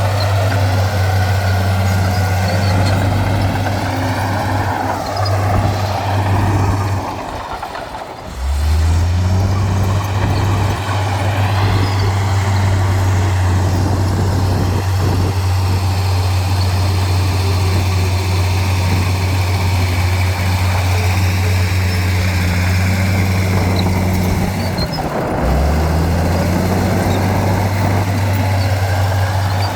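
Heavy earthmoving machine's diesel engine running with a steady low drone. It dips and cuts back in about seven seconds in and again near the end, with fainter wavering higher tones above it.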